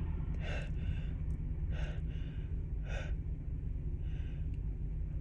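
A woman with a stuffy, sneezy cold taking about six short, gasping breaths in, the build-up to a sneeze. A steady low hum runs underneath.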